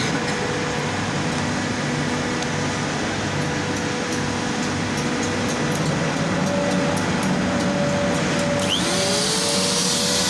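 Bosch trim router's electric motor running with a steady whirring whine. About nine seconds in, a whine rises in pitch and levels off as the motor spins up, and the sound turns brighter and hissier.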